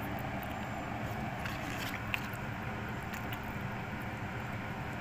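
Steady road and engine noise inside a moving car's cabin, with a few faint clicks.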